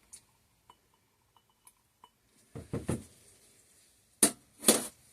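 A spatula scraping out a small container of fragrance oil blended with kaolin clay: a few faint ticks, a short scrape and clatter, then two sharp knocks against the container near the end.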